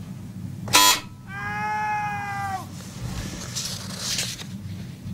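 A brief, harsh buzz from a mock shock generator as the 120-volt switch is pressed. It is followed by a man's pained cry lasting about a second and a half, played back as the supposed learner's reaction to the shock. A low steady hum sits underneath throughout.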